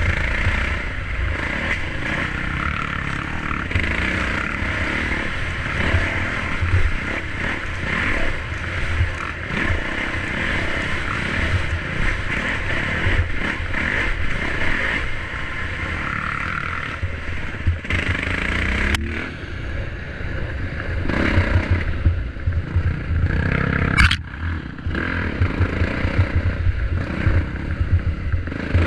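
Dirt bike engine running under varying throttle while riding a sandy single-track trail, with scraping and clattering. The engine revs up about two-thirds of the way through, and there are two sharp knocks in the later part.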